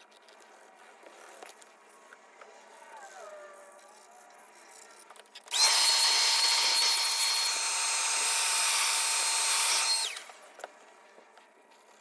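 Handheld mini vacuum cleaner switched on for about four and a half seconds, running with a steady high-pitched motor whine, then switched off. Faint handling and rubbing sounds come before it.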